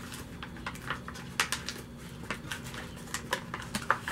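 Wrapping paper being folded and crinkled by hand around an ice cream sandwich: a run of small, irregular crackles and rustles, a few of them sharper.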